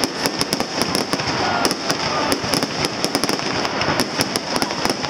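Fireworks display with many crackling shells going off at once: a dense, continuous crackle of sharp pops, several a second.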